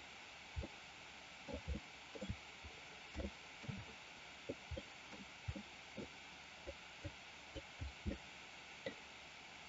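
Soft, short low thumps at an irregular pace of about one or two a second over a steady faint microphone hiss: mouse clicks and desk handling picked up by the desk microphone during computer sculpting.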